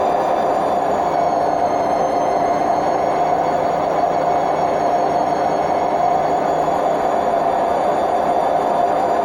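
Hotpoint WMF760 washing machine spinning at a steady high speed: a loud, even roar with steady high whining tones over it, the sound of worn-out drum bearings.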